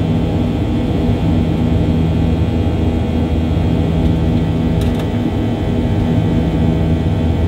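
Airliner cabin noise heard from a window seat: the steady, loud rumble of jet engines and rushing air, with a few steady low hum tones running through it.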